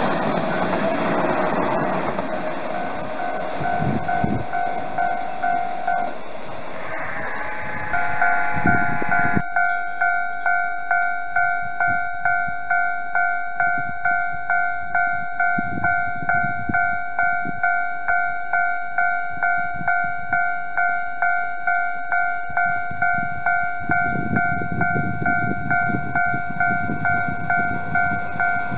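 Railway level-crossing alarm ringing, a steady two-tone electronic clang repeating about one and a half times a second. First, a Nankai 2000 series train rumbles past close by. Near the end, the rumble of another 2000 series train grows as it approaches.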